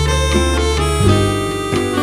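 Background music: plucked guitar with a reedy wind melody, notes changing about every half second.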